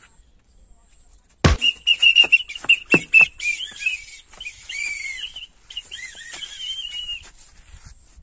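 A single sharp smack about a second and a half in, a thin stick striking a bare back, followed by a high warbling tone with scattered clicks that runs on for several seconds.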